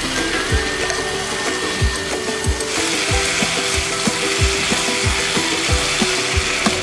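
Meat and bean sprouts sizzling in a pan as metal tongs stir and scrape them, with the sizzle growing louder about three seconds in. Live concert music plays in the distance, with a steady kick-drum beat.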